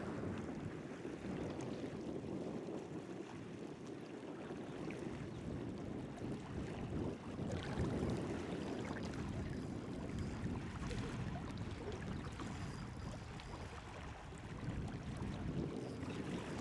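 Wind noise on the microphone over the steady wash of river water.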